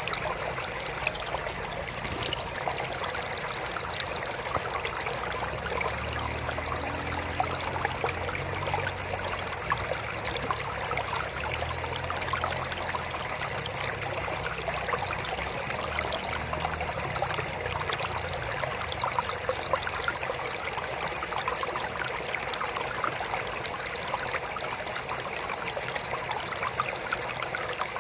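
Water trickling steadily into a mini aquarium, an even splashing with small crackles. A faint low hum comes and goes through the middle stretch.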